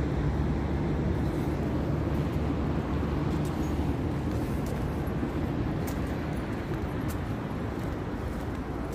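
City street traffic: the steady low rumble of passing cars, easing off slowly.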